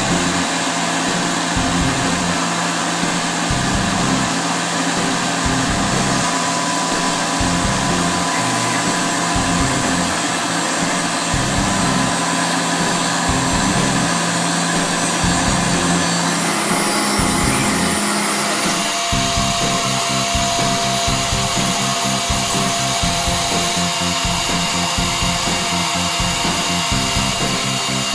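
Tormach PCNC 770 CNC mill's spindle running as a small engraving bit cuts the outlines of circuit traces into copper-clad board. Background music plays along with it.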